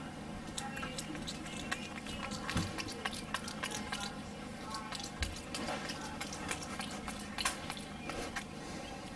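Capuchin monkey chewing a bratwurst, with wet lip-smacking clicks coming irregularly.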